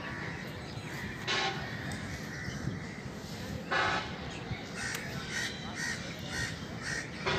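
A crow cawing three times, a couple of seconds apart, each caw short and harsh. Between the caws comes a run of short chirps.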